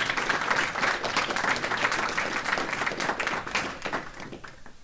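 Audience applauding, with many hands clapping at once; the applause dies away near the end.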